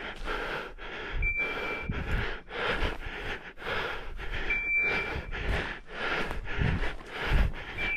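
Heavy, rapid breathing of a person hurrying on foot through a pine forest, about two breaths a second. A hunting dog's beeper collar sounds a short high beep about every three seconds, the signal that the dog is holding point.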